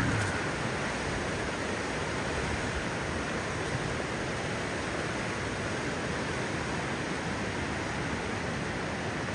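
Steady rushing of a stream flowing close by, an even wash of water noise.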